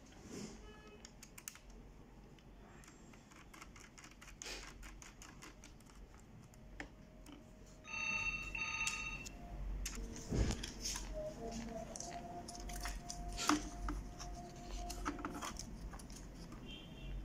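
Small clicks and knocks of laptop parts being handled: flat ribbon cables pressed into their connectors and the keyboard fitted onto the chassis, with two louder knocks in the second half. A short two-part electronic beep, like a phone ringtone, sounds about eight seconds in, and a faint steady tone comes in after about eleven seconds.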